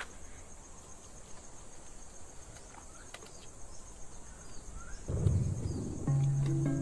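Steady high-pitched pulsing insect chorus with a few faint bird chirps. About five seconds in a low noise swells, and near the end soft ambient music with sustained bell-like tones comes in.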